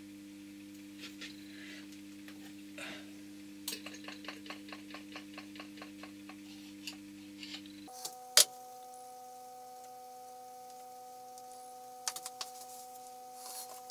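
Hand-pump oil can clicking about four times a second as it squirts oil onto the lathe's spindle nose, which is oiled to stop the chuck backplate sticking, over a low electrical hum. A single sharp metallic knock follows a little past halfway, then a few light clicks near the end.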